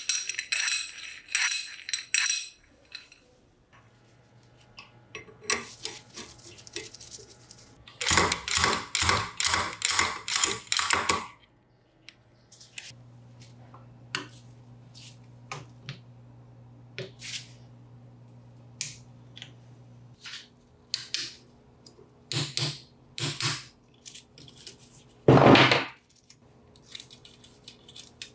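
Metal parts of an old Hitachi disc grinder and hand tools clinking and tapping on a hard surface, in scattered single clicks. About eight seconds in comes a quick run of taps lasting about three seconds, and near the end a louder noise of about a second.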